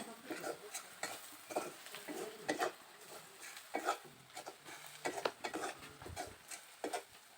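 A spatula or spoon stirring and scraping in a cooking pan, in short irregular strokes, with a faint sizzle of turmeric frying in oil.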